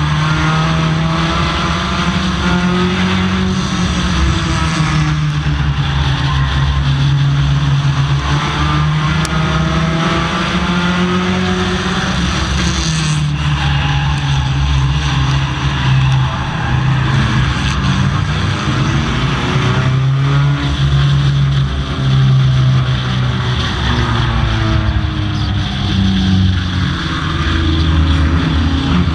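Stock car engine heard from inside the car, running at low, moderate revs at caution pace, its pitch rising and falling slowly as the driver eases on and off the throttle.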